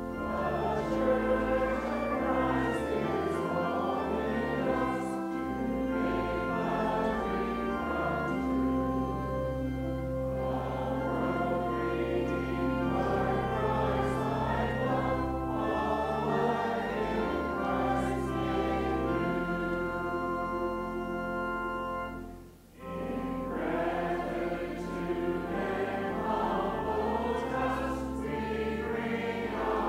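A hymn sung by a choir over accompaniment with long held low notes, breaking off briefly about three-quarters of the way through before the next verse begins.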